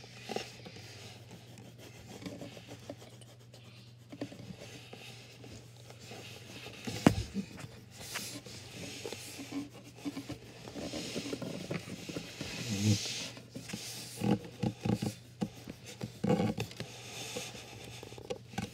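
Colored pencil scratching on paper over a clipboard as a patch is shaded in with quick back-and-forth strokes, with one sharp knock about seven seconds in.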